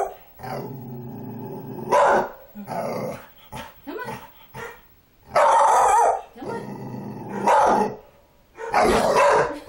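A dog growling low and steadily, broken by about four loud barks. It is the frightened growling and barking of a dog that is scared of a doll.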